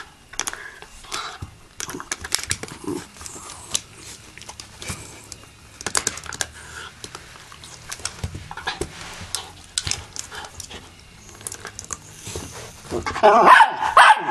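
Terrier chewing and pawing at a plastic toy fan, making many sharp clicks and knocks of plastic. About thirteen seconds in, it breaks into loud barking at the toy.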